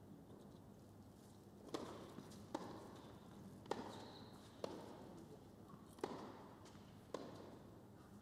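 A tennis rally on an indoor hard court: about six sharp pops of the ball struck by rackets and bouncing, roughly a second apart, echoing in a large hall.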